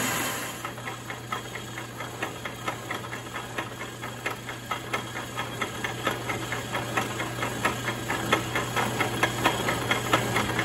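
Woodruff key cutter in a Logan 922 lathe's spindle milling a keyseat into a steel shaft: a regular tick of the cutter's teeth biting, about four or five a second, over the steady hum of the lathe motor, the ticks growing louder toward the end.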